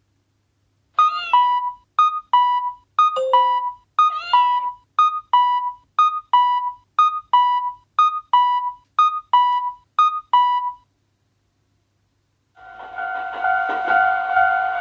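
Synthesized railroad crossing alarm chiming a steady two-note ding-ding, about one pair every 0.7 s, which stops about eleven seconds in. Near the end a different, denser pulsing electronic tone begins.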